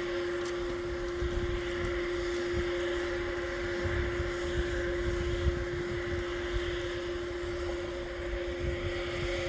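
A machine running steadily with a constant-pitched hum, over an irregular low rumble.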